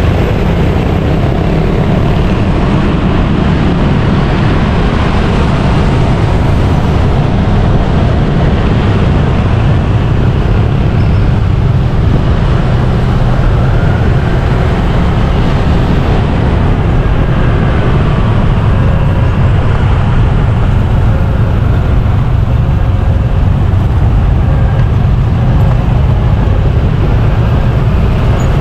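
Loud, steady rumble of road and traffic noise heard from a vehicle riding through city streets.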